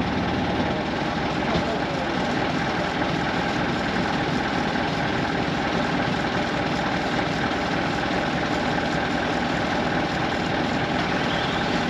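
Telehandler's diesel engine running steadily at idle.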